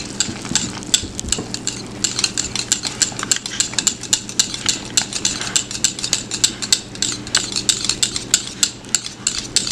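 Wire whisk beating thick, jelly-set cooked pudding in a bowl: rapid, irregular clicking and scraping of the whisk against the bowl.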